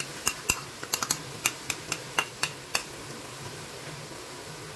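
A spoon tapping and scraping against a plate as tomato ketchup is emptied into a pot of mince: a quick, irregular run of about a dozen light clicks over roughly three seconds, then they stop.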